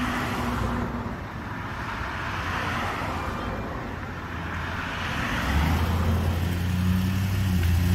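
Cars passing on a residential street, their tyre noise swelling and fading as they go by. From about five and a half seconds, a vehicle's engine hum close by grows steadily louder.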